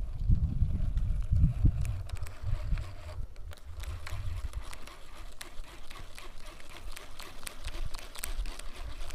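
Low rumble of wind and handling on the camera microphone for about the first three seconds, then quieter, with scattered faint clicks and ticks.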